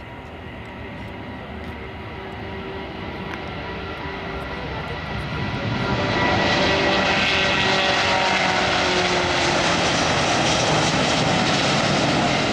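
Boeing 787-9 jet airliner taking off at reduced thrust. Its engine noise grows steadily louder and swells sharply about halfway through, with a few held tones sliding slowly down in pitch as it passes.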